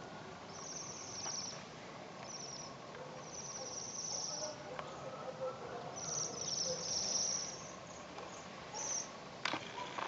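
A flock of Bohemian waxwings giving high, thin trilling calls in repeated bouts, several birds overlapping, with a short lull in the middle. A sharp click comes near the end.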